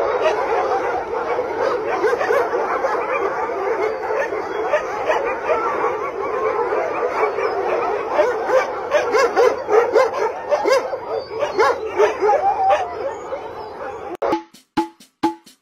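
A huge pack of dogs barking at once in a dense, unbroken chorus of overlapping calls. About fourteen seconds in it cuts off and gives way to music of short, evenly spaced percussive notes.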